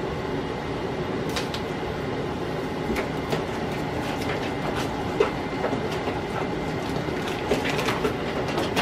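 Pancake batter being stirred and mixed in plastic tubs, with scattered light clicks and taps of utensils against the plastic over a steady background noise.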